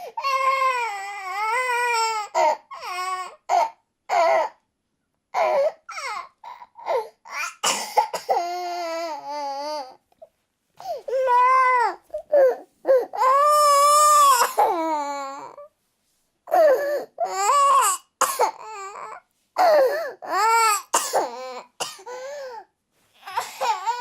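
A young child crying in high, wavering wails of up to about two seconds, broken by short sharp coughs between the cries.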